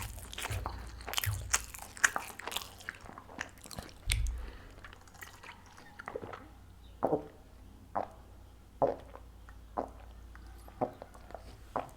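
Close-miked biting and chewing of a chicken-stuffed crêpe pastry. For about the first four seconds there are many quick bites close together, then slower chewing with a single click about once a second.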